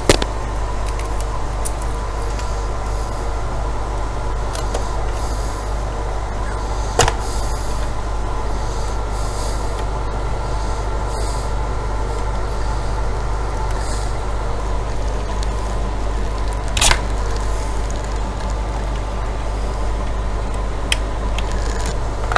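Steady low mechanical hum, with a few sharp clicks and taps of hands and a tool on the router's plastic case.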